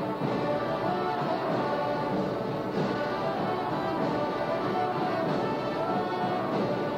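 Orchestral music with brass, playing steadily and full throughout.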